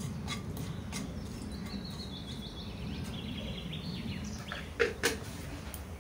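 Cumin seeds and whole spices crackling in hot oil in a nonstick pan: scattered small pops over a low steady rumble, with two louder clicks about five seconds in. A bird chirps briefly in the background through the middle.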